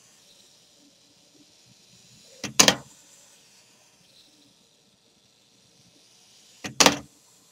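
Wind-up gorilla toy doing backflips on a hard tabletop, its clockwork whirring faintly. Twice, about two and a half seconds in and again near the end, it lands a flip with a sharp double clack.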